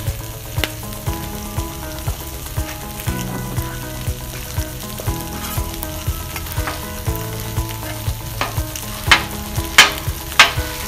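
Meat sizzling on a hot Blackstone flat-top griddle while metal spatulas click and scrape on the steel plate, breaking up a mound of cooked rice. A few loud, sharp spatula strikes come in the last couple of seconds.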